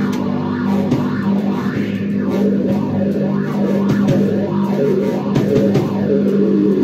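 Loud improvised noise-rock jam: a held low droning note, likely the trombone, over a noisy electric guitar, with scattered drum and cymbal hits.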